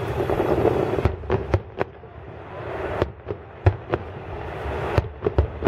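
Aerial fireworks shells bursting in a loose series of sharp bangs, about ten of them, with a dense rumbling din in the first second before the separate reports begin.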